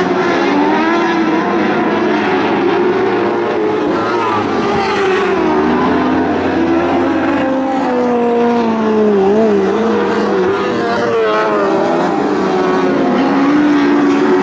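Several Lightning Sprint race car engines running hard together, their pitches rising and falling as they accelerate and back off.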